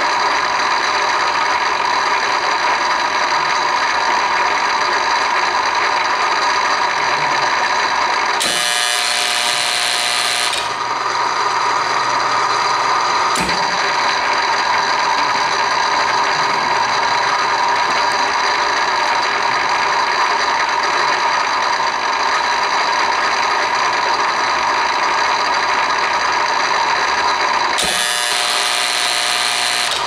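Kingsbury 23 tapping unit running through its cycle: a steady machine whine with several held tones. About eight seconds in, and again near the end, the sound turns brighter and hissier for about two seconds, and a single sharp click comes about thirteen seconds in.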